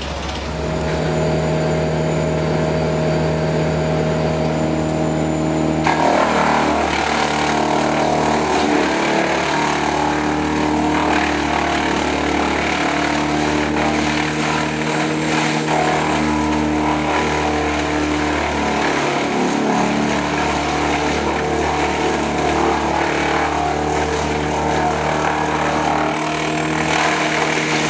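An engine running steadily at one pitch. About six seconds in, a rougher, noisier sound joins it and carries on.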